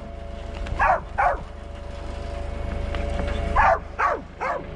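Hunting dogs barking and yipping in short calls: two about a second in and three more near the end, over a steady low rumble.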